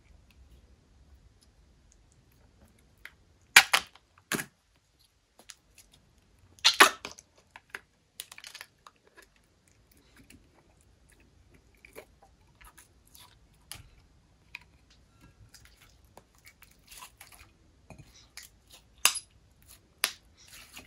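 Slime being mixed and squished by hand: scattered sticky clicks and wet squelching pops at irregular intervals, with a few louder ones about four seconds in, near seven seconds, and again near the end.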